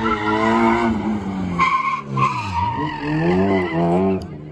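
Race car engine at high revs, its pitch falling as the car slows about a second in, then climbing again through the revs before dropping away near the end, with tyres squealing briefly about two seconds in.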